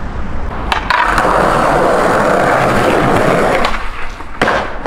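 Skateboard wheels rolling over rough pavement with a steady grinding rumble, then sharp clacks of the board near the end as the skater pops it into a jump.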